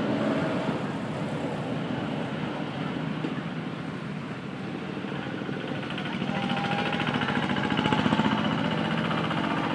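Motorbike engines running on a road, the traffic getting louder in the second half with the loudest pass about eight seconds in.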